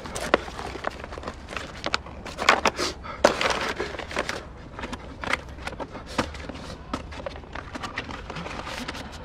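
A brown paper envelope being handled and opened: an irregular run of paper rustles and crackles, busiest a few seconds in.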